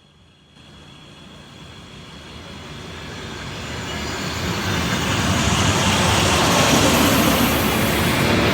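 ED4M electric multiple unit pulling away from the platform, its running noise starting about half a second in and growing steadily louder as it gathers speed.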